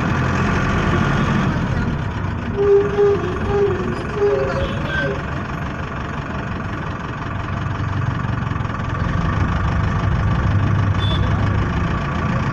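City road traffic heard from a moving vehicle: engines running steadily, with a few short pitched tones about three to four seconds in.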